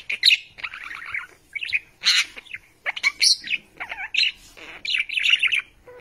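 Budgerigars chattering: rapid, irregular runs of short chirps and warbles, broken by brief pauses.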